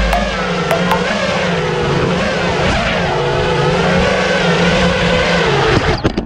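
FPV quadcopter's brushless motors and propellers whining, the pitch rising and falling with the throttle, cutting off abruptly near the end.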